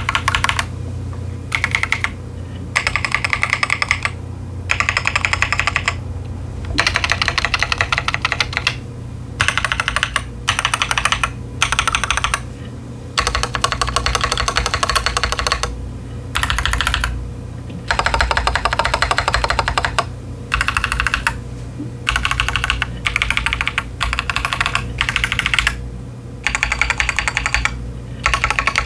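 Typing on a Keychron Q10 mechanical keyboard with TTC Chaotic Panda tactile switches and ASA-profile doubleshot PBT keycaps: bursts of rapid keystrokes, each a second or two long, broken by short pauses. A steady low hum runs underneath.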